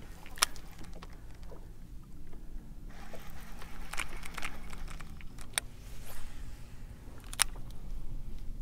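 Low steady hum of a boat's motor, with four sharp clicks spread through.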